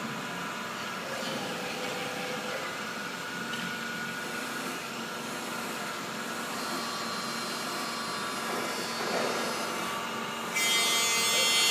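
Emmegi Phantomatic T4 CNC profile machining centre running between cuts with a steady machine hum, then about ten and a half seconds in a louder, high-pitched spindle cutting sound starts abruptly.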